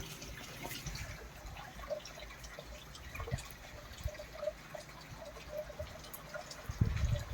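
Heavy rain falling, with a steady scatter of drips and splashes. A few louder low thumps come near the end.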